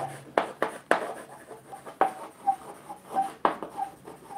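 Chalk writing on a blackboard: a quick, irregular run of taps and scratches as the letters are stroked out.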